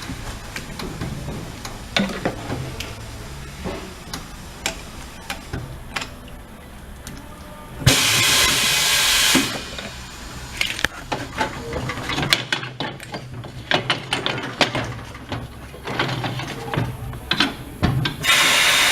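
Compressed air hissing in two loud bursts of about a second and a half, with scattered metal knocks and clicks from work on the tire and wheel in between.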